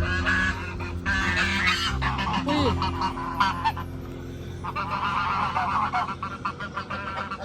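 A flock of domestic ducks calling loudly in overlapping nasal calls, in three rounds: right at the start, about a second in, and again after the middle, with a steady low hum underneath.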